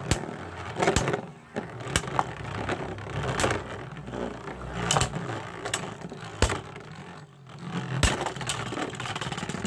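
Two Beyblade Burst spinning tops, Revive Phoenix and Spriggan Requiem, whirring and scraping as they circle a plastic stadium floor, with repeated sharp clacks as they strike each other.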